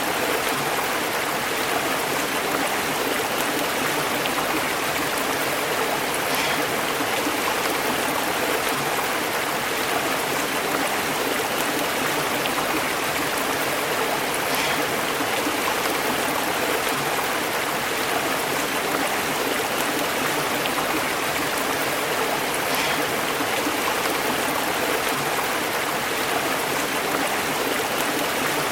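Stream flowing and burbling over rocks, a steady rush of water with small splashes here and there.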